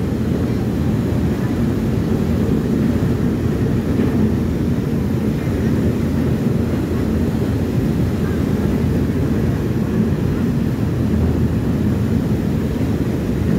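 Steady low rumble of a car ferry under way, its engines and propellers churning the wake below the stern.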